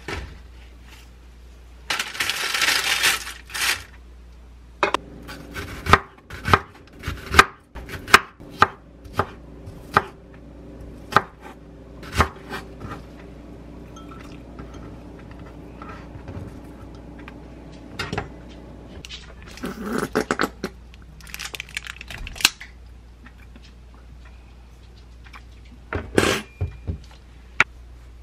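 Kitchen prep sounds. A short rustle of paper, then a kitchen knife chopping onion on a wooden cutting board in a run of sharp knocks over a steady hum. Later, scattered clinks of a glass bowl and utensils, and one sharp knock near the end.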